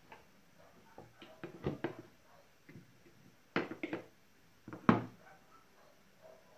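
Scattered plastic clicks and knocks as the parts of a cordless drill are handled and set back into its open plastic housing, the loudest knock about five seconds in.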